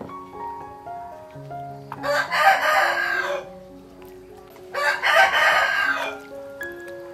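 Rooster crowing twice, each crow a little over a second long, about two seconds in and again about five seconds in, over soft background music.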